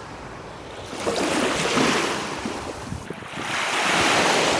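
Baltic Sea waves washing onto the shore: a rushing wash that swells about a second in and again near the end.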